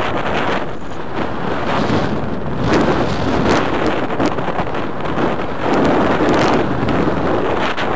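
Wind buffeting the microphone in gusts, a loud rushing noise that swells twice, with a few faint clicks.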